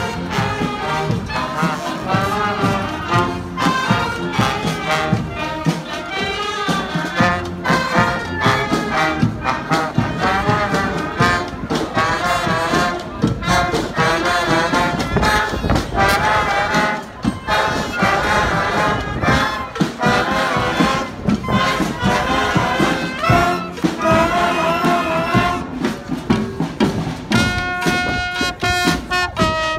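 Street brass band playing: trumpets and trombones in full swing over a steady beat, ending on a long held note near the end.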